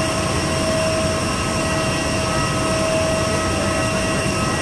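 Parked airliner's turbine noise: a steady high whine over an even rumbling hiss.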